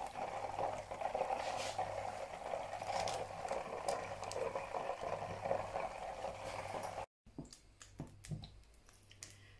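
Oil sizzling and bubbling in a wok as toothpick-skewered beef deep-fries, a steady hiss. It cuts off about seven seconds in, leaving only a few faint clicks.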